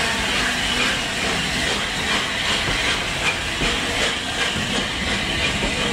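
LNER A4 Pacific steam locomotive 60009 hissing steam, a steady loud hiss.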